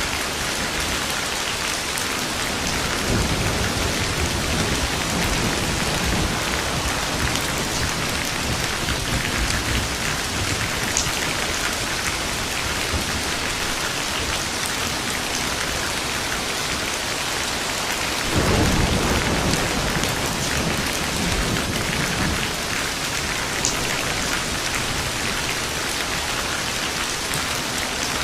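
Steady heavy rain with rolling thunder: a low rumble swells about three seconds in, and a louder thunderclap breaks suddenly past the middle and rumbles off over several seconds.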